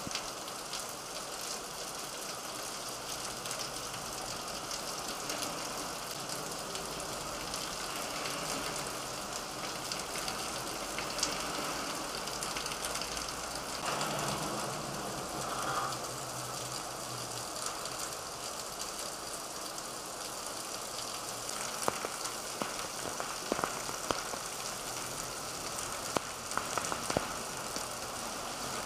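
Heavy rain pouring onto a street and pavement, a steady hiss of rain and running water. A vehicle passes about halfway through, and a few sharp taps of drops come near the end.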